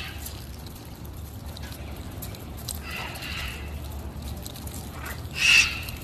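A flock of green macaws calling: a few squawks about three seconds in, then a loud squawk near the end, over a steady low hum.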